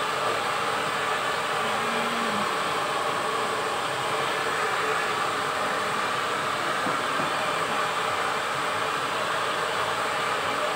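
Handheld hair dryer blowing steadily while drying a person's short hair.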